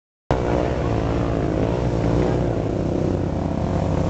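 ATV (quad) engines running, with a steady low drone whose pitch wavers up and down as the throttle is worked.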